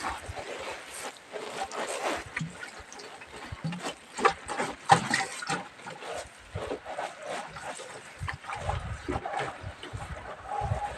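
Irregular animal calls mixed with knocks and clatter, busiest and loudest about four to five seconds in.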